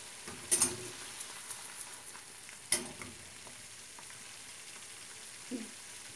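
Höşmerim mixture of curd cheese, sugar, semolina and butter sizzling and bubbling steadily in a frying pan, the bubbles showing it is nearly done. A couple of sharp knocks of the pan on the gas stove's grate, the loudest about half a second in and another near three seconds, with lighter ticks between.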